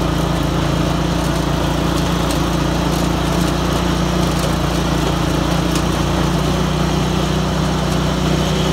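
Riding lawn tractor's small engine running steadily at an even speed while the tractor is driven.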